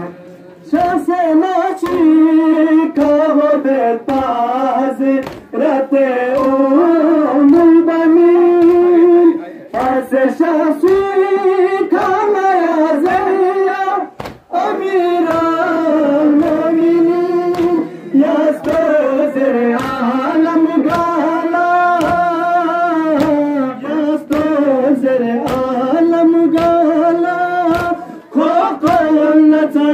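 Men chanting a Balti noha (mourning lament), amplified through a horn loudspeaker. Under it, the crowd's chest-beating (matam) keeps a steady beat of about three strokes every two seconds.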